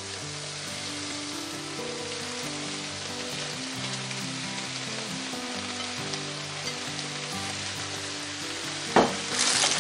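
Stir-fry sizzling steadily in oil in a wide frying pan as handfuls of raw sliced vegetables are tossed in, with soft background music underneath. A sharp knock comes about nine seconds in.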